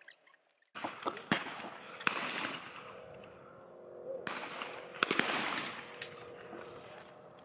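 Shotguns firing on a clay-target range: a handful of sharp shots at irregular intervals, some close together. Before the shots start, the first second is nearly silent.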